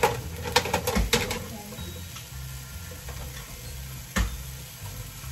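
Kitchenware clicking and knocking at the stove: a quick run of light taps in the first second or so, then a single sharp knock about four seconds in, over a low steady hum.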